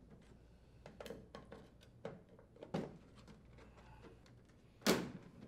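Plastic front grille of a Frigidaire window air conditioner being pried off with a putty knife. A few light clicks and snaps come as its tabs let go, then one much louder sharp snap near the end.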